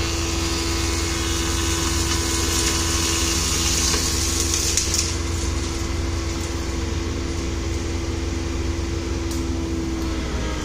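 Thickness planer running with a steady hum while a board is fed through it and planed to thickness: a high cutting hiss from the cutterhead, strongest over the first five seconds or so, then fading as the machine runs on.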